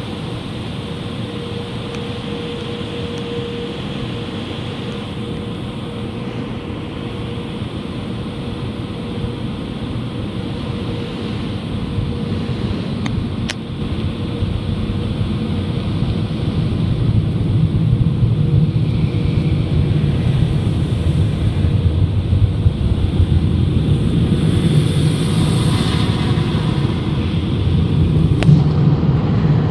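Car wash tunnel's air dryer blowers running, a steady rumbling rush of air heard from inside the car, getting louder about halfway through as the car passes under and beside them.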